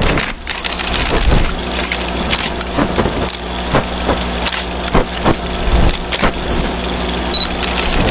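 Old film projector running, a steady motor hum with irregular crackles and pops, as used for a vintage film-burn effect. Two brief high beeps come near the end.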